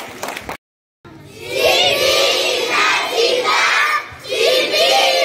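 A large crowd of schoolchildren shouting and singing out together, loud, in two long phrases with a short break about four seconds in.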